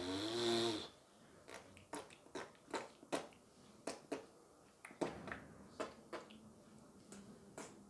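Clothing rustle from a shiny jacket as a person stretches: a scattered run of sharp, uneven crackles and crinkles. A brief wavering pitched sound ends just under a second in.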